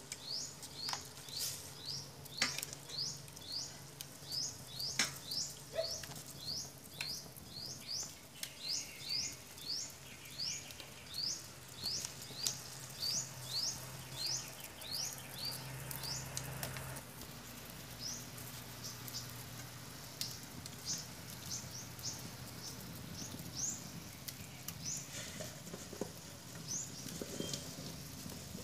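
A small bird chirping over and over, short rising high-pitched chirps about two a second, thinning out after about seventeen seconds. A few sharp clicks sound in the first five seconds.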